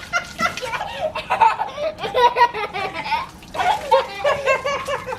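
People laughing, a child among them, in repeated bursts of laughter.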